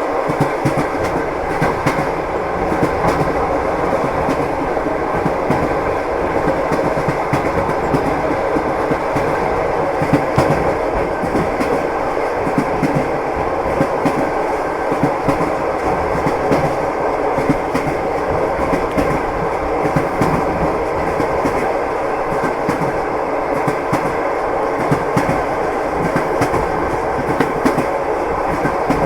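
Train wheels clattering over rail joints (clickety-clack): a steady rolling rumble of a moving train with frequent short knocks throughout.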